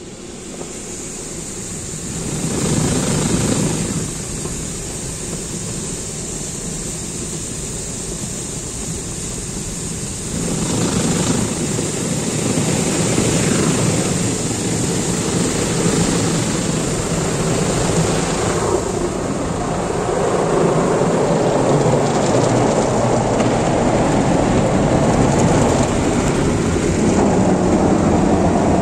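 Automatic car wash heard from inside the car: water spraying against the glass and body, and rotating brushes scrubbing along the car, a continuous rushing and rumbling. It grows louder in steps, about two seconds in, about ten seconds in and again near nineteen seconds.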